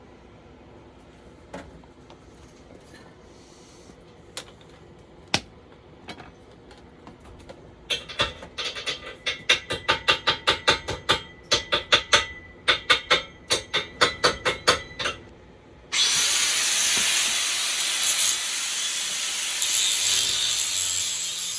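Tool work on wood: a few scattered knocks, then about seven seconds of quick rhythmic strokes, around three a second. At about sixteen seconds a loud, steady rushing noise starts abruptly and continues.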